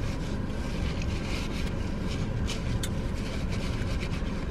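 Steady low rumble inside a parked car, with a few faint clicks.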